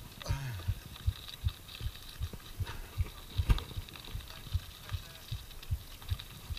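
Mountain bike rolling down a dirt trail: the ride jolts the microphone with repeated low thuds, about three a second, with light clicks and rattles over the bumps.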